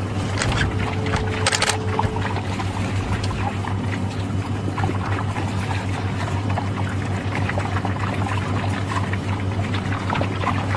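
Wet splashing and lapping of water from a pack of African wild dogs drinking and jostling in a muddy waterhole, a busy crackle of small irregular splashes, over a steady low hum.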